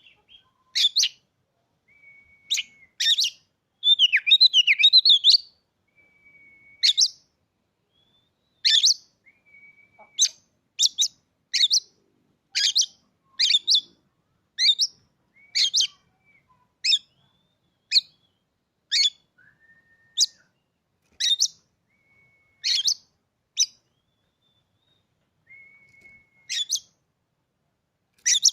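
Oriental magpie-robin (kacer) giving loud, sharp calls at about one a second, with a burst of rapid twittering about four seconds in and a few faint, level whistled notes between the calls.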